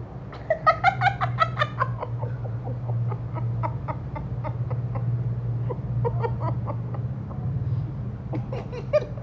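A toddler making quick, repeated short vocal sounds, clucking and giggle-like, in a fast flurry near the start and again near the end, with fainter soft sounds between. A steady low hum runs underneath.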